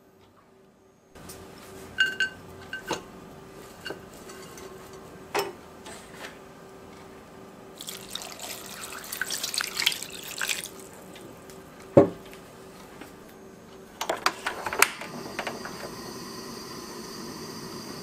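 Kitchen handling sounds: a few light knocks of soaked gondre greens and a glass bowl, then water poured into a pot for a few seconds, and a single sharp knock. Near the end, a portable gas stove's igniter clicks several times and its burner settles into a steady hiss.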